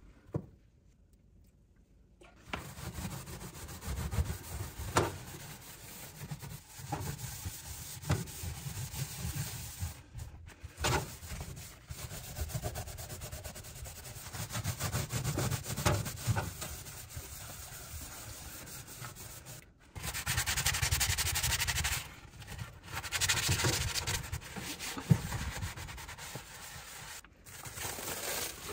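A scrubbing sponge rubbing hard back and forth over the enamel floor and walls of an oven, a rough scouring sound. It starts about two seconds in and comes in spells that break off abruptly a few times.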